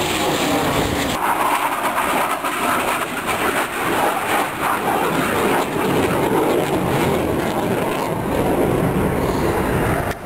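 Aircraft engine noise at an airshow: a steady, loud rumble of an aircraft overhead.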